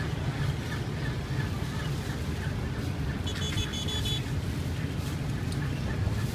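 Street ambience: a steady low rumble of traffic and wind on the microphone. About three seconds in there is a quick run of high electronic beeps lasting about a second.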